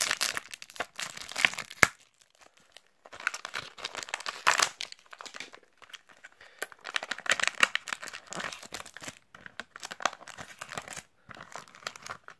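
Stiff clear plastic of a Panini FIFA 365 card blister pack crinkling and tearing as it is pulled open by hand, in several bursts with short pauses between them.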